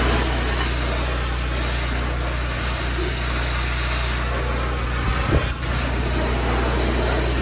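Pressure washing: an engine runs steadily beneath a constant hiss of water spray, with one brief knock about five seconds in.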